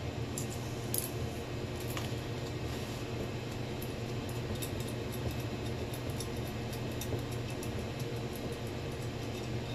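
Light metallic clicks and ticks from small bolts and washers being handled and the turbocharger's housing flange being worked by hand, over a steady low room hum.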